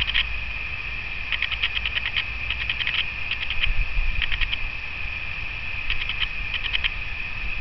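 High-pitched chirping in short bursts of rapid ticks, repeating every second or so over a steady high tone, with a low rumble of wind on the microphone.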